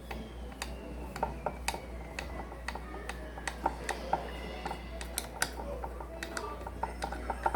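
Irregular light clicks and clinks of hardware and parts being handled while a microwave support bracket is assembled, over a steady low hum.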